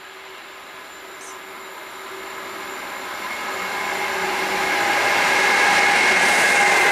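DB class 152 electric locomotive approaching at the head of an intermodal freight train, its running noise growing steadily louder as it nears. A high whine in several tones rides over the rumble and dips slightly in pitch near the end.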